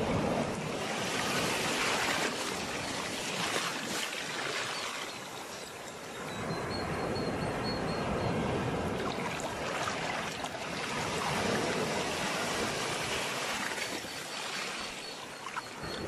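Sea waves washing onto a shore: a steady rushing of surf that swells and falls back several times.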